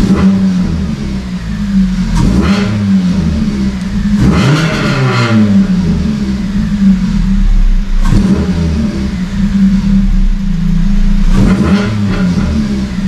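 Honda Civic FN2 Type R's 2.0-litre four-cylinder engine running at idle, with a few short revs. The owner reckons a remaining noise in it is a pulley bearing.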